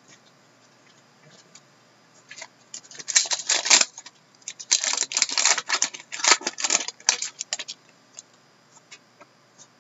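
A trading card pack's wrapper torn open and crumpled by hand: a short burst of crinkling about three seconds in, then a longer run of crinkling and rustling for about three seconds.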